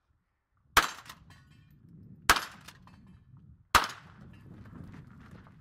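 Three .22 rimfire shots about a second and a half apart, each a sharp crack with a short tail after it.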